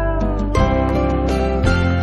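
Background music from a slow love ballad in a short instrumental gap between sung lines: a held note fades out about half a second in, then new notes come in over a steady bass.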